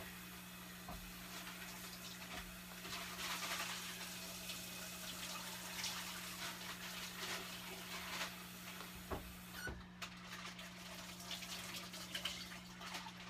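Kitchen tap water running faintly at a distance as snap peas are rinsed in their bag at the sink.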